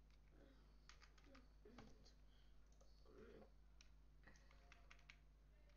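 Faint computer keyboard keystrokes and mouse clicks, a few quick runs of clicks about a second in and again past four seconds, over near silence.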